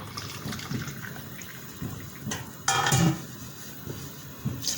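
Boiling water being poured into a pressure cooker over the tripe, with a louder clatter of the pot lasting a fraction of a second about three seconds in.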